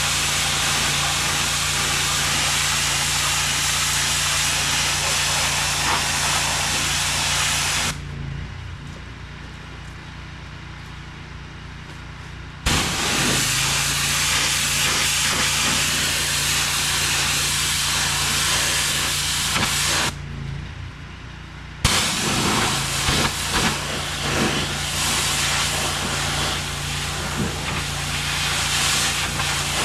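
HydroTek hot-water pressure washer spraying in long bursts, a loud even hiss over the steady hum of the machine running. The spray cuts off twice, about eight seconds in for some five seconds and again around twenty seconds in for about two seconds, leaving only the hum.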